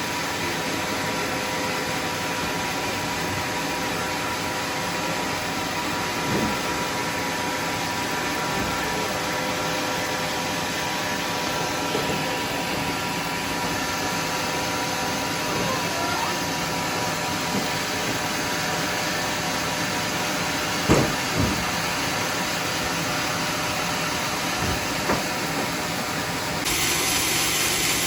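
Sawmill machinery running with a steady hum and a few short knocks. Near the end the hiss suddenly gets louder.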